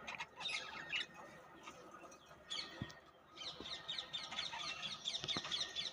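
Budgerigars chattering with many quick, high chirps: one cluster about half a second in, then a dense run of rapid chirping over the last half.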